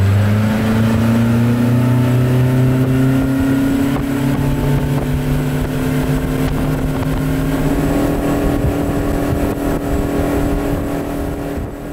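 Mercury outboard motor accelerating hard on a boat under way, its engine pitch climbing steadily for several seconds and then holding high, over a rush of wind and water.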